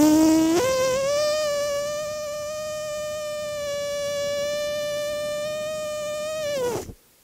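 A man's long, steady hum held for nearly seven seconds as part of a yoga breathing exercise. It jumps up in pitch just after it starts and drops away at the end as the breath runs out.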